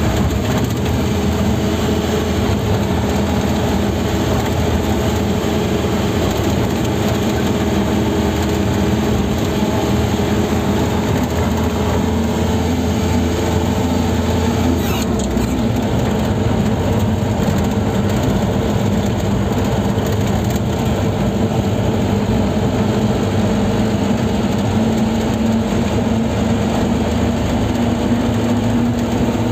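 Car engine and tyre noise heard inside the cabin while cruising on a highway: a steady drone, with the deep rumble easing about halfway through.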